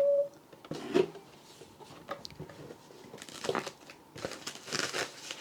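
Packaging being opened: paper and plastic crinkling and tearing in short, irregular rustles, with a sharp tick about a second in.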